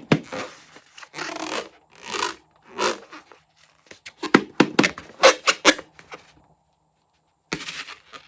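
Hands rubbing and squeezing slime and balloon rubber in a series of short strokes, with a cluster of sharp crackles about four to six seconds in, a pause, then one more stroke near the end.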